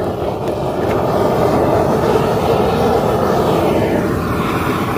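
Handheld propane torch burning with a steady rushing hiss, its flame singeing the fur off a squirrel carcass.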